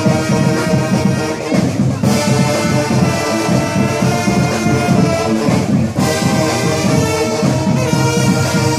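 Marching band brass section playing, a sousaphone close by carrying a pulsing bass line under held trombone and trumpet notes. The phrase changes about two seconds in and again about six seconds in.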